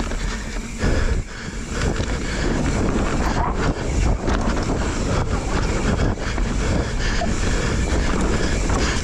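Mountain bike riding down a dirt forest singletrack: wind buffeting the microphone over the rumble of knobby tyres on dirt, with frequent knocks and rattles as the bike jolts over roots and bumps.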